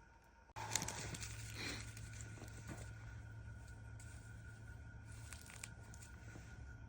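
Dry cedar bark and moss of a nest crackling and crinkling, with a few sharp crackles in the first couple of seconds and scattered ones after. A steady low hum runs underneath from a sudden start about half a second in.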